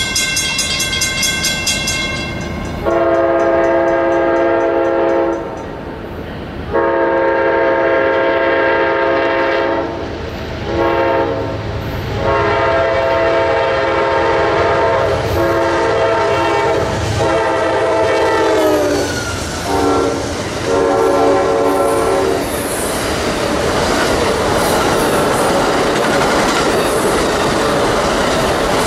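Amtrak Auto Train locomotive horn sounding the grade-crossing pattern: two long blasts, a short one and a long one, the chord dropping in pitch as the locomotive passes. Then the rushing and clickety-clack of the passenger cars rolling by.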